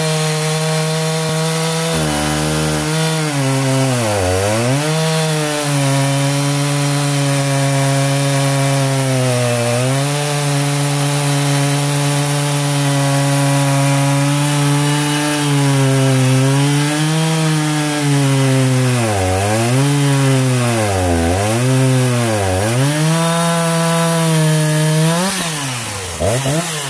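Stock Husqvarna 359 two-stroke chainsaw with a 36-inch bar cutting very hard oak at full throttle. The engine's pitch mostly holds steady, then drops and recovers several times, most often in the second half, as the long bar loads the saw to its limit.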